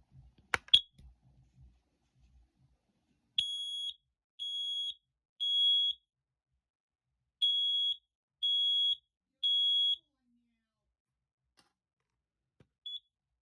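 Smoke alarm sounding its alarm in the temporal-three pattern: two rounds of three steady high-pitched beeps about a second apart, with a short pause between rounds, then a single short chirp near the end. A click comes just before the beeps.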